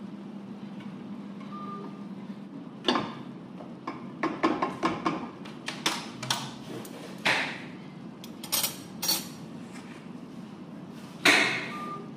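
Slotted spatula knocking and scraping in a non-stick frying pan while stir-frying chicken and vegetables: a quick run of knocks and taps, then a few louder separate clatters, the loudest near the end, over a steady low hum.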